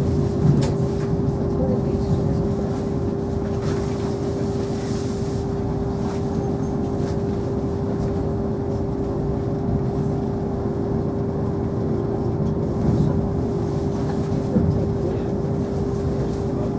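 Steady running noise inside a DB ICE train cabin as the train rolls slowly onto a train ferry: a constant hum over a low rumble, with a few short knocks, about half a second in and twice near the end.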